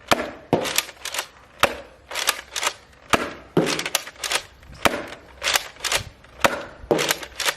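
X-Shot Chaos toy blaster firing foam balls in quick succession, a sharp pop with each shot, roughly two shots a second.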